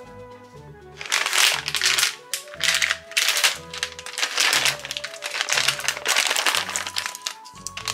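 Plastic bag of pet ice cups crinkling loudly as it is picked up and handled, starting about a second in, over background music with a regular beat.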